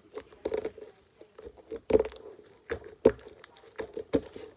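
Glitter-glue slime being squished and kneaded by hand: irregular clicks and pops, the loudest about two and three seconds in.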